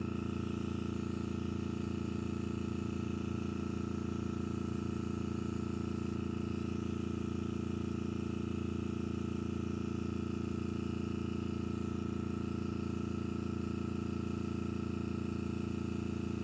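Small air compressor feeding an airbrush, running with a steady hum while the airbrush sprays paint.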